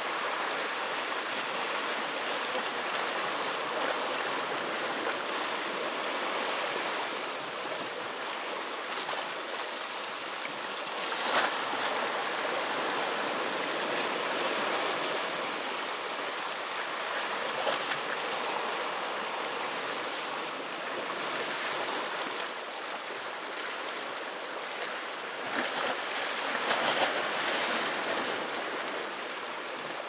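Sea waves washing against the shore: a steady rush of surf that swells and eases, with brief sharper splashes about a third of the way in and a few more near the end.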